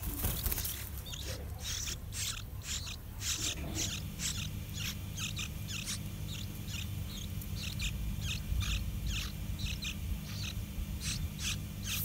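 Yellow-vented bulbul nestlings giving short, high begging calls, several a second and irregular, as a parent comes to feed them at the nest. A low rumble and, from about four seconds in, a faint steady hum lie underneath.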